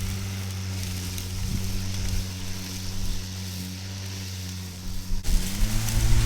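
Milwaukee battery lawn mower's electric motor and blade running with a steady hum. About five seconds in, the pitch rises and the sound grows louder as the motor speeds up.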